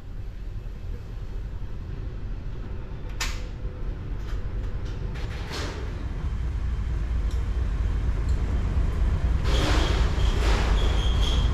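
Deep, steady machinery rumble of a ship's engine room that grows steadily louder, broken by a few sharp knocks about three and five and a half seconds in and a louder clatter near the end, with a faint high whine at the very end.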